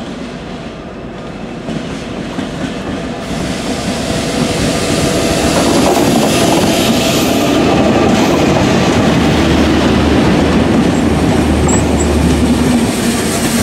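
IE 201 Class diesel locomotive, with an EMD 12-cylinder two-stroke engine, approaching and passing at low speed, growing louder over the first six seconds. After that comes the steady rumble and clickety-clack of the Enterprise coaches rolling past over the pointwork.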